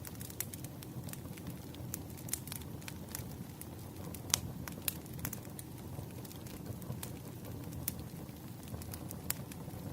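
Wood fire burning, with sharp irregular crackles and pops over a low steady hiss of the flames. One pop about four and a half seconds in stands out as the loudest.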